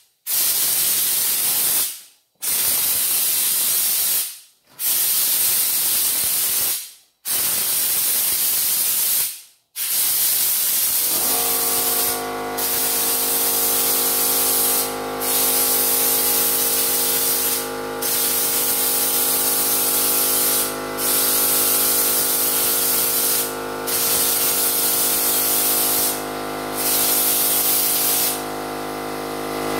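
A compressed-air undercoating spray gun hisses as it sprays bedliner, in bursts of about two seconds with short breaks between trigger pulls. About 11 seconds in, a steady motor hum joins and runs on as the air compressor starts up.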